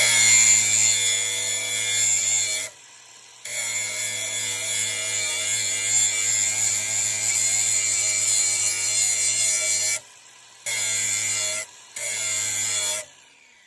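Electric grinder with a new grinding wheel sharpening the steel edge of a lawn mower blade, a steady high grinding in long passes. It breaks off sharply three times and stops shortly before the end.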